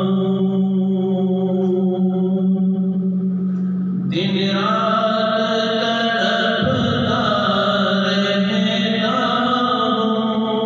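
A man's voice chanting in long, slow, melodic held notes into a handheld microphone. One note is sustained for about four seconds, and then a new, higher phrase begins.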